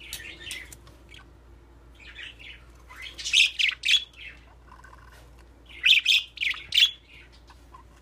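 Budgerigars chirping and squawking in short, high-pitched bursts, loudest in two bouts about three and six seconds in.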